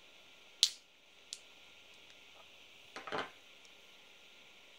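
Mazda key fob's plastic cover snapping loose as it is pried with a flathead screwdriver: one sharp click about half a second in and a faint tick a moment later. A brief crackle of the plastic fob being handled follows about three seconds in.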